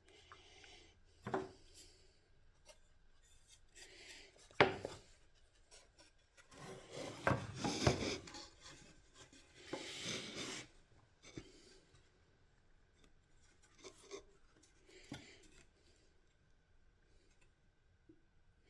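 Hands working parts at a workbench: rubbing and scraping with scattered clicks, a sharp knock about four and a half seconds in, and two longer scraping passes around the middle.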